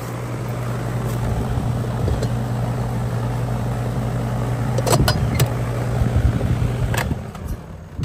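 Outdoor heat pump condensing unit running with a steady hum from its compressor and condenser fan. A few sharp clicks and clacks about five and seven seconds in as the pull-out disconnect box is opened and the disconnect pulled. Near the end the hum dies away as the unit's power is cut.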